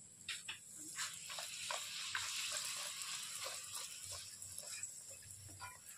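A kachori deep-frying in hot oil in a wok: a steady sizzle with scattered small pops, starting about a second in.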